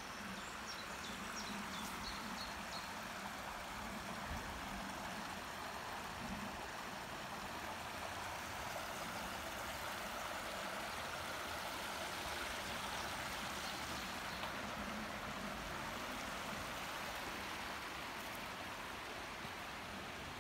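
A rocky forest stream flowing, a steady rushing of water over stones. A few short high chirps sound near the start.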